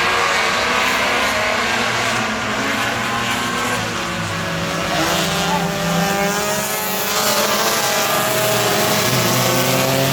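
Compact-class race cars running hard on a short oval, several engines sounding at once with their pitches rising and falling as they accelerate and lift.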